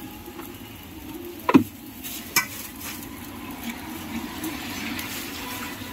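Metal tongs and chopsticks working among steel food pans and a steel tray, with two sharp clanks about a second and a half and two and a half seconds in, over a steady low hiss.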